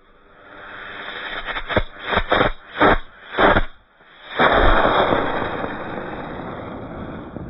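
Aerotech model rocket motor lighting with an irregular start: a hiss builds, then the motor chuffs in about five separate pulses. After a brief pause it comes up to a steady, loud rushing burn that slowly fades near the end.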